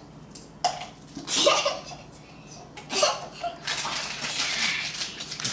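Brown paper bag crinkling and rustling as a hand rummages inside it, running steadily through the last couple of seconds, after a few short sounds and bits of a child's laughter.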